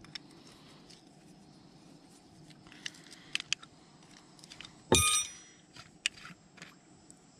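Small metal clicks of a hand wrench working on a small Honda engine's carburetor, with one sharp, ringing metal clink about five seconds in.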